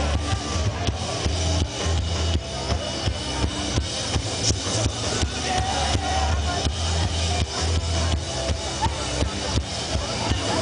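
Live rock band playing: electric guitars, bass guitar and drum kit, with drum hits about four times a second over a steady bass.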